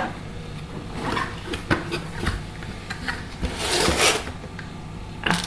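Drawing tablet's cardboard box and packaging being handled and opened: scattered light knocks and scrapes, with a longer rubbing, sliding stretch of cardboard about three and a half seconds in.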